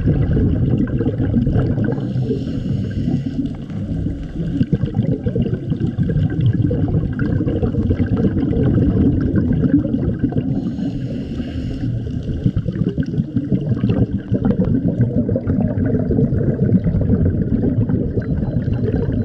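Muffled underwater water noise picked up by a camera inside its waterproof housing: a dense low rumble with gurgling. A fainter higher hiss swells up twice, a couple of seconds in and again about eleven seconds in.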